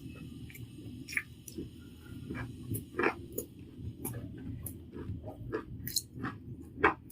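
Close-up sounds of a person eating rice and fritters: chewing with irregular sharp mouth clicks and smacks, the loudest about three seconds in and near the end.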